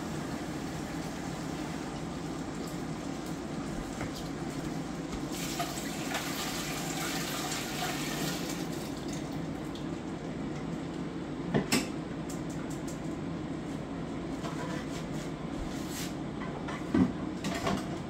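Blended chile sauce being poured from a blender jar through a mesh strainer into a stockpot of hot broth, the liquid running and splashing, strongest for a few seconds about a third of the way in. Over a steady low background noise, there are a couple of sharp knocks of the jar or strainer against the pot, one about two-thirds of the way in and one near the end.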